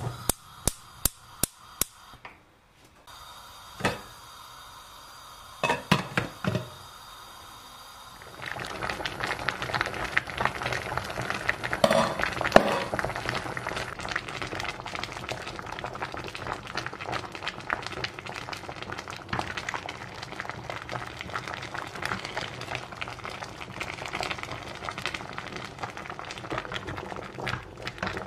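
A few sharp clinks and knocks of a stainless steel pot and its glass lid. About eight seconds in, a steady bubbling and crackling of boiling water around a whole head of cabbage in the pot begins and keeps going.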